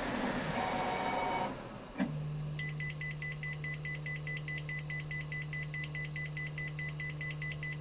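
Prusa Core One 3D printer printing, its fans and motors running. About two seconds in a click, then a buzzer on an ESP32 project board beeps in a rapid, even run over a steady low hum, signalling that the print has finished.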